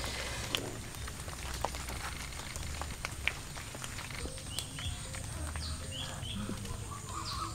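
Short high bird chirps scattered through the second half, over a steady low rumble and a few light clicks, with a wavering call near the end.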